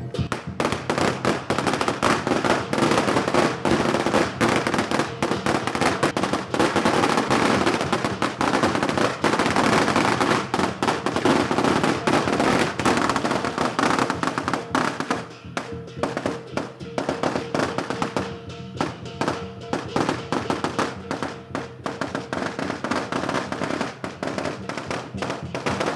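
A string of firecrackers going off in a dense, rapid crackle that starts suddenly, thinning to sparser pops after about fifteen seconds, over lion-dance drumming.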